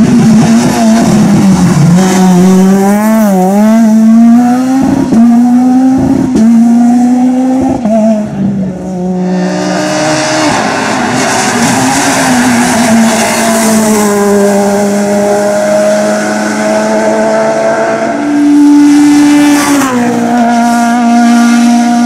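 Peugeot 207 rally cars driven hard on a tarmac stage, one after another: the engine revs climb and drop again and again with the gear changes, with short sharp cuts in the engine note and tyre squeal through the corners.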